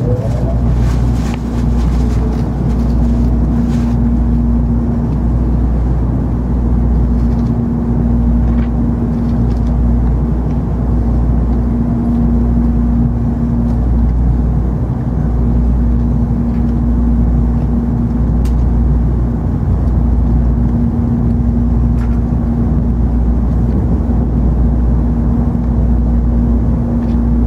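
Cabin noise of an N700 series Shinkansen running at speed, heard from inside the passenger car: a steady low rumble from the running gear and a steady hum that drops out briefly a couple of times.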